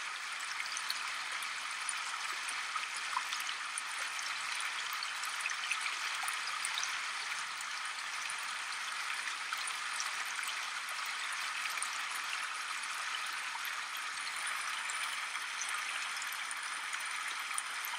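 Shallow river running steadily over riffles, an even hiss of flowing water.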